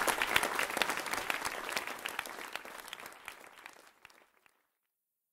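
Audience applause at the end of a live jazz number, the clapping thinning and fading out by about four seconds in.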